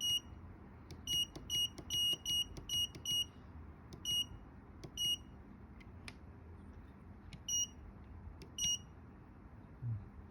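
Short electronic beeps from the M606 vending machine board's keypad buzzer, one per key press while paging through its setup menu. About eleven beeps: a quick run of seven in the first three seconds, then four more spread out.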